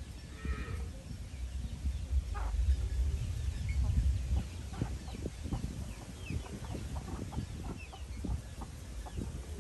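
A flock of chickens clucking softly as they forage, with chicks giving short high peeps and scattered pecking and scratching in the dirt. A low rumble swells for a couple of seconds near the middle.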